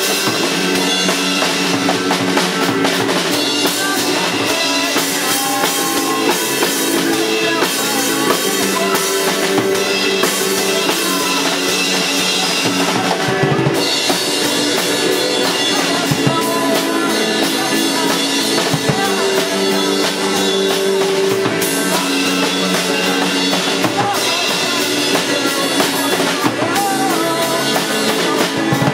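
Live rock band playing an instrumental song without vocals, with the drum kit prominent over sustained chords.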